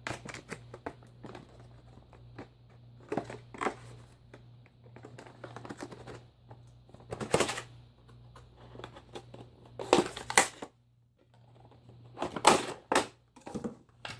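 Packaging and a small plastic doll accessory being handled: irregular crinkling and crackling with small clicks, a few louder crackles among them.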